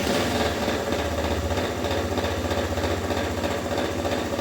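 Honda CG 160's single-cylinder engine running steadily with an even, rapid beat. It carries a small extra noise, more than the engine should make, which is why it is in for a check.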